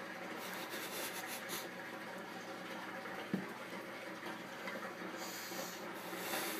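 A person breathing out hard through nose and mouth around a mouthful of dry ground cinnamon: two long hissing puffs of breath, one early and one near the end, with a small click about three seconds in.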